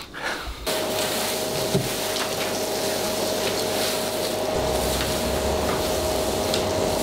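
Festool dust extractor running steadily, starting just under a second in, with a constant motor whine over the rush of air as its floor nozzle vacuums debris off the floor.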